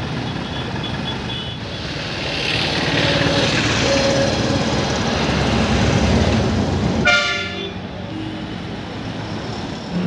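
Road traffic heard from a moving vehicle on a busy town road: engine and road rumble that grows louder for a while. About seven seconds in, a vehicle horn toots once, briefly.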